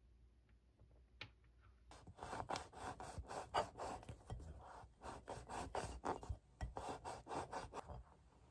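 A thawed frozen bagel being worked apart by hand, its crust rubbing and rasping in a run of quick, uneven strokes that start about two seconds in and stop near the end.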